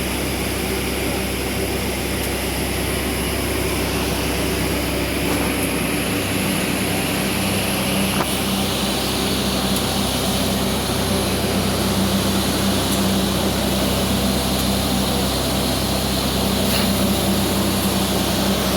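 Water-well (borewell) drilling rig running: a loud, steady mechanical drone with a constant low hum that strengthens slightly about six seconds in.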